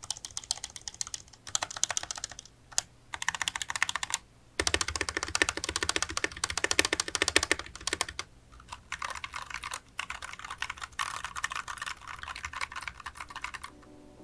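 Koodo Arcadia mechanical keyboard with tactile Gateron Brown switches, typed on fast in bursts of rapid keystrokes separated by short pauses. The loudest burst, from about four and a half to seven and a half seconds in, is fuller and deeper. Its stabilizers have been lubed with Krytox GPL 205 grade 0 to keep stabilizer rattle down.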